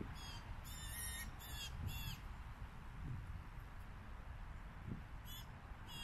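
Blue jay calling: a quick run of about four harsh calls in the first two seconds, then two more near the end.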